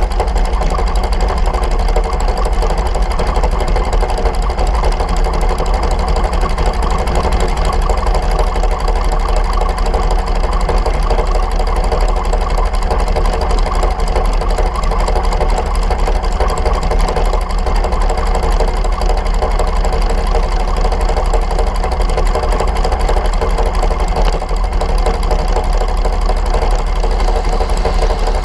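Dragster engine idling steadily and loudly, picked up close by a camera mounted on the car.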